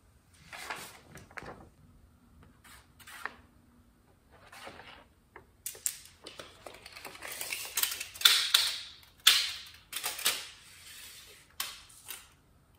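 A sheet of paper rustling as it is handled, then a steel tape measure being pulled out and set on a board, with a run of sharp clicks and rattles that are loudest in the second half.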